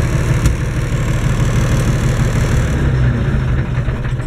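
Massey Ferguson 1102 (Eicher 3105) tractor's air-cooled diesel engine running steadily, heard from inside the cab. There is a single sharp click about half a second in.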